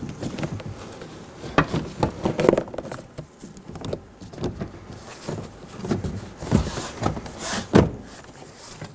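Nissan Sentra front door trim panel being handled and hung on the door, making a string of irregular plastic knocks and rattles, with the loudest knock near the end.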